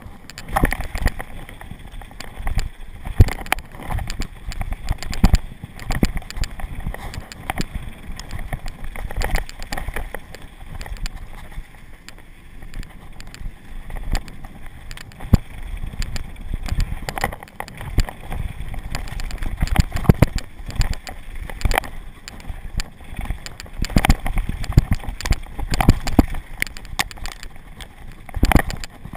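Mountain bike descending a dirt downhill trail at speed: a continuous rumble of tyres on packed dirt, broken by frequent irregular knocks and rattles as the bike hits bumps and jumps.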